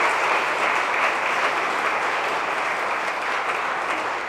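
A church congregation applauding, a dense steady clapping that thins out near the end.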